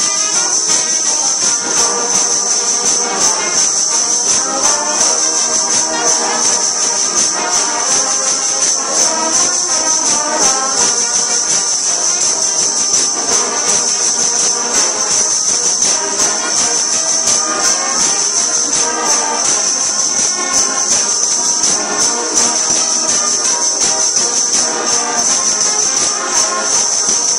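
Brass band of trumpets and a sousaphone playing loudly and without a break, with a constant high shimmer over the top.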